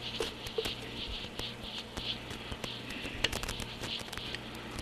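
Steel adjusting set screw being turned through its threaded hole in the Atlas 10F lathe's tailstock casting: small scratchy squeaks recurring every half second or so, with irregular light ticks of the tool on the metal. The threads drag through paint in the hole.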